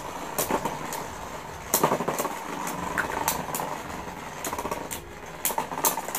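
Two metal-wheeled Beyblade tops, Guardian Revizer 160SB and Lightning L-Drago 100HF, spinning in a clear plastic stadium with a steady hiss and irregular sharp clacks as they strike each other, several close together about two seconds in and again near the end.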